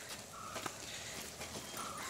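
Crows cawing twice, once near the start and once near the end, with faint clicks in the background.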